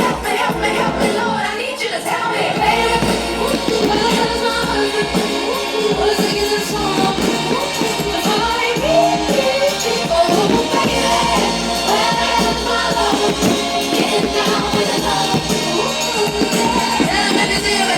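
Music with singing voices, steady and continuous.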